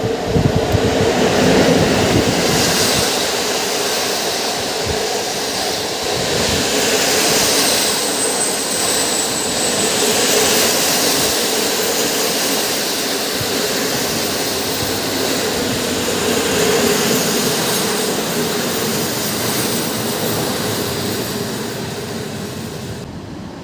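Locomotive-hauled intercity passenger train running through the station: a loud, steady rolling of wheels on the rails that eases slightly near the end.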